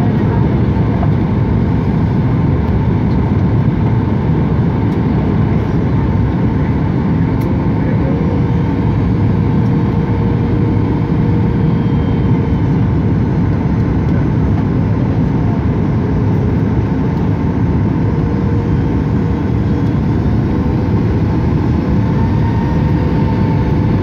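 Steady airliner cabin noise from the engines and the air rushing past, heard from a window seat during the climb after takeoff. A deep, even rumble runs throughout, with faint steady hums above it.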